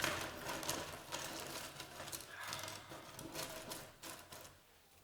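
Small sticks clicking and knocking against each other as they are gathered into a pile by hand, a run of light irregular clicks that dies away about four and a half seconds in.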